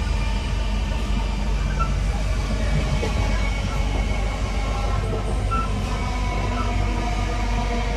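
Interior of a Class 323 electric multiple unit on the move: the traction motors give a steady whine of several tones over the rumble of the running gear.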